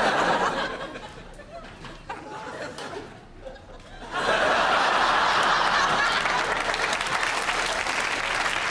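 Studio audience laughing, then about four seconds in breaking into sustained laughter and applause.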